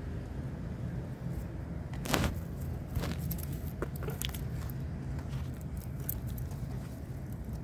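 Steady low outdoor rumble with scattered light clicks and crackles; the loudest is a short rustle about two seconds in.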